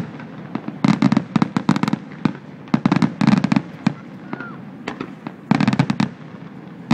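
Fireworks display: three clusters of rapid sharp bangs and crackles, about two seconds apart, with a few single pops between them.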